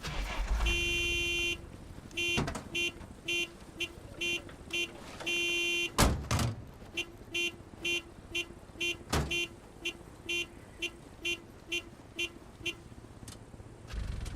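Vehicle horn beeping: a long blast, then a run of short toots at about two a second with another long blast in the middle, stopping about three seconds before the end. A few loud thumps come in between, the loudest about six seconds in.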